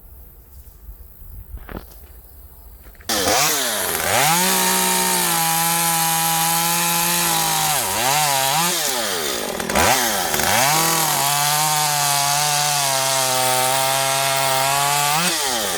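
Stihl 194T top-handle two-stroke chainsaw coming in loudly about three seconds in, revving up and then cutting under load, its pitch held steady and a little lower while it bites. Around the middle it drops off and revs back up, and it revs again near the end.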